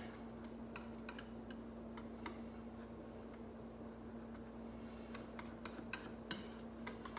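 A wire whisk stirring melted chocolate and cream in a metal mixing bowl, giving faint, irregular light clicks as it taps the bowl's side. A steady low hum runs underneath.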